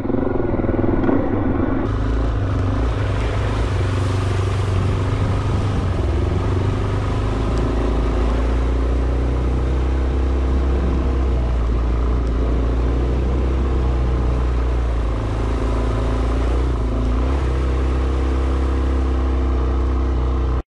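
Motorcycle engine running steadily while the bike rides through a river crossing, the level dipping slightly about fifteen seconds in.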